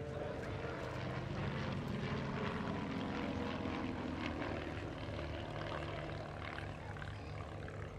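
Two small single-engine propeller aerobatic planes flying in formation, their engines droning with a pitch that rises and falls as they manoeuvre.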